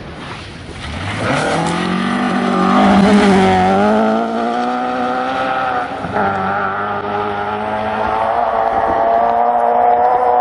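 Historic rally car engine running at high revs under hard acceleration, its pitch climbing, with a brief drop about six seconds in before it climbs steadily again.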